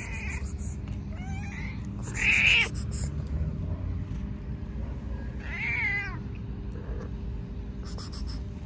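Hungry stray cat meowing repeatedly for food: several short meows, the loudest a little over two seconds in and another at about six seconds.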